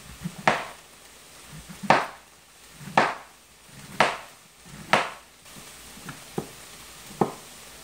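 Chef's knife cutting through yellow squash and striking a plastic cutting board: five sharp chops about a second apart, then a few lighter cuts near the end.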